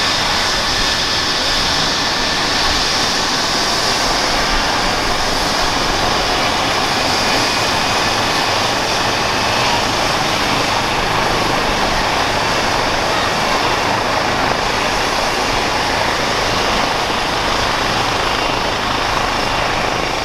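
Eurocopter EC135 P2+ police helicopter running on the ground, its twin Pratt & Whitney PW206B turboshaft engines and rotor giving a loud, steady noise with a thin high turbine whine.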